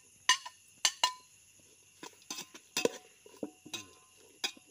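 A metal slotted spoon clinking and scraping against a plate and a metal cooking pot as chopped green beans are tipped in and the vegetables are stirred: about a dozen irregular sharp clinks.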